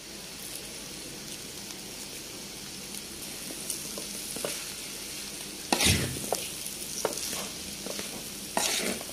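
Potato and egg bhaji sizzling in a frying pan while a spatula stirs it. From about four seconds in the spatula scrapes and knocks against the pan several times, loudest just before six seconds.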